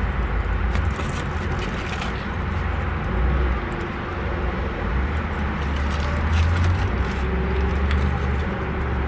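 Steady low rumble of an idling car heard inside its cabin, with short crinkles of aluminium foil being handled now and then.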